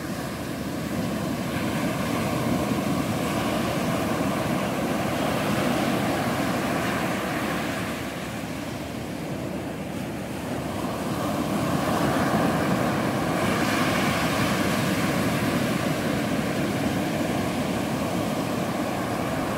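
Ocean surf breaking and washing up a sandy beach as a steady rush of noise. It eases about eight seconds in and swells again a few seconds later.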